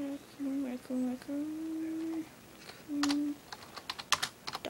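A girl humming a little tune: several short notes, one longer held note, and another short note, then a quick run of clicks from typing on a computer keyboard near the end.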